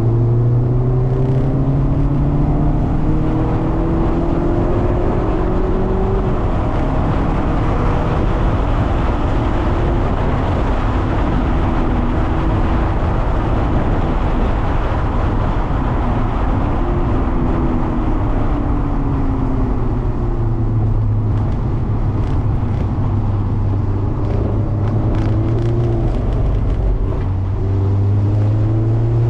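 Mazda MX-5 ND's four-cylinder engine on track, revs climbing at the start, again about two-thirds in and near the end, and easing off between, over a steady hiss of tyres and spray on wet tarmac.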